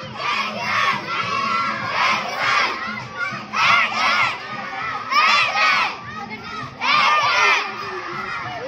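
A large group of schoolchildren shouting together in unison, in loud short bursts that often come in pairs every second or so, like chanted slogans, over a constant murmur of many voices.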